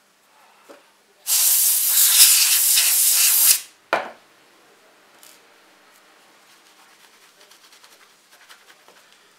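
Compressed air blasting dust off projector parts: a loud steady hiss lasting about two seconds, starting about a second in, then a short puff soon after.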